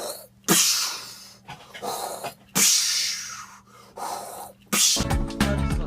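A man making sound effects with his mouth: sudden hissing, breathy bursts, two of them loud and trailing off slowly, with shorter puffs between. Music comes in near the end.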